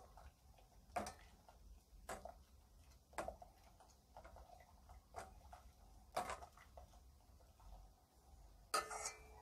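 A metal ladle stirring broth in a stainless steel stockpot, clinking against the side of the pot about once a second, with a louder clank near the end.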